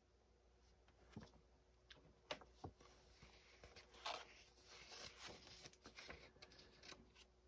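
Faint handling of a glossy magazine: a few light ticks, then paper rustling from about four seconds in as the open magazine is shifted.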